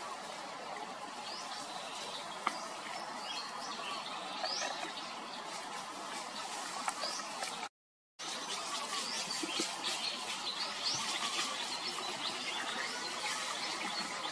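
Birds chirping, many short rising chirps, over a steady outdoor background hiss. The sound cuts out briefly about eight seconds in.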